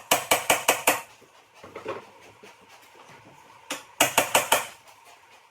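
Two quick bursts of sharp, clattering knocks, five or six strikes in under a second each, the second burst about four seconds in.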